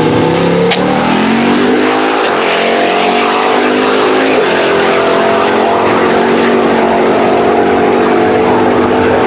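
Turbocharged 370 cubic inch LS V8 in a Chevrolet Impala at full throttle, revs climbing, with a high whistle rising over the first two seconds. The revs drop about four and a half seconds in as the automatic shifts up, then climb again.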